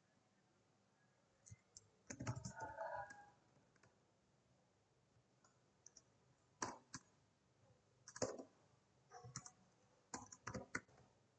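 Computer keyboard keys clicking as code is typed, in irregular short bursts with pauses between: a longer flurry about two seconds in, then quick bursts every second or so near the end.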